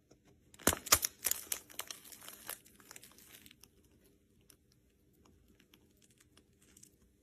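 Shrimp frying in hot oil in a pan, the oil crackling and spitting in quick irregular pops. The pops are dense at first and thin out to a few scattered ones by about three and a half seconds in.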